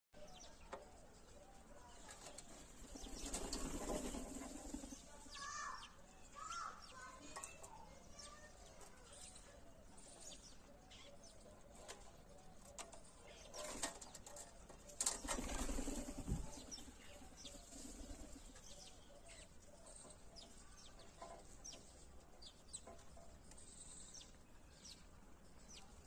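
Bird wings flapping in two short flurries, a few seconds in and again about halfway, as birds come and go at a metal feeding trough. Between them, faint scattered clicks and scratches from Indian palm squirrels feeding in the trough.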